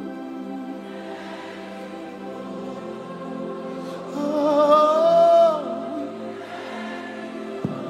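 Live gospel worship music: sustained keyboard chords, with a single wordless sung note with wide vibrato about four seconds in, the loudest part, and a brief soft knock near the end.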